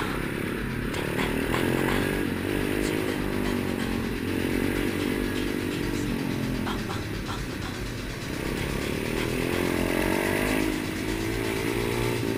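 Pit bike engine revving up and down as it is ridden, its note climbing over the first couple of seconds, dropping back, then climbing again later.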